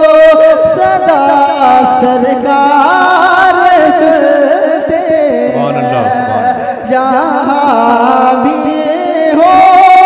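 A man singing a naat, the Islamic devotional poem in praise of the Prophet, into a microphone. He draws out long, ornamented melodic phrases, with held notes that waver in pitch.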